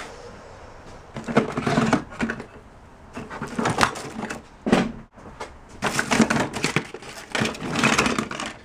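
Mixed household items being rummaged through and lifted out of a box: irregular rustling and clattering, in several short bursts.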